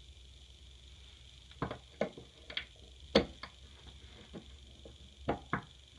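A Delta faucet handle being worked onto its valve stem: a series of sharp clicks and knocks as it seats, the loudest about three seconds in.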